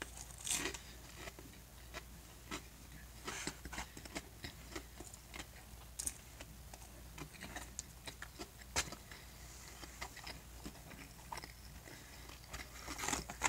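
A person chewing food close to the microphone: faint, irregular wet mouth clicks and smacks, now and then a sharper click.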